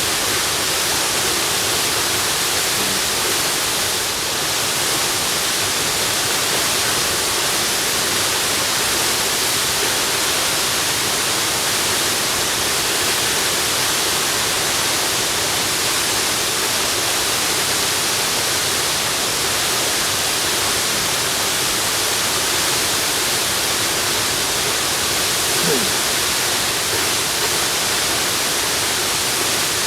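Steady rushing of a waterfall: a dense, even hiss of falling water, strongest in the upper range.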